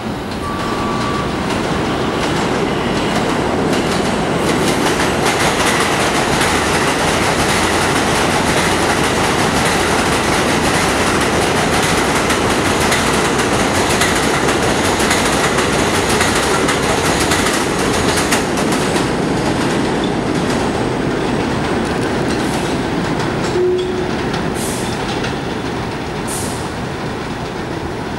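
R188 subway train on the 7 express passing through an elevated station at speed without stopping: a long loud rush of steel wheels on rail and clatter over the track, building over the first few seconds and easing off near the end.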